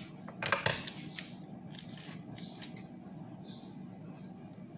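Plastic piping bag of pancake batter crinkling as it is handled, with a few short rustles and clicks while its tip is snipped off with scissors.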